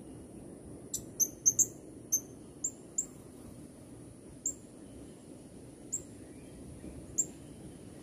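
Blue-crowned hanging parrot (serindit) calls: about ten short, sharp, very high chirps at irregular intervals, over a faint steady high whine.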